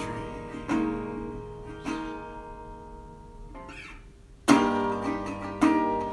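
Strummed acoustic guitar with no singing: chords ring and fade, dying away to a near pause about four seconds in, then two louder strums come back in.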